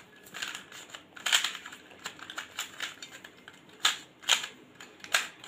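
Plastic Pyraminx puzzle being twisted by hand, its pieces clicking and clacking at irregular intervals as the layers are turned to scramble it. The sharpest clacks come near the end.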